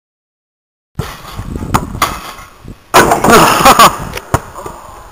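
About a second of silence, then thumps and knocks from a backyard trampoline and a basketball being bounced, with a louder rough stretch about three seconds in.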